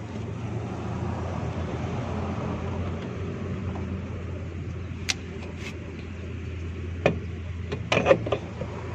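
A steady low machine hum throughout, with a few sharp metallic clicks and knocks in the second half as a screwdriver works the drum-brake shoe adjuster and the brake drum is fitted back over the shoes.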